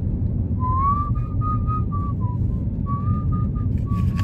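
A man whistling a tune in short held notes, starting about half a second in, over the steady low rumble of the car's cabin.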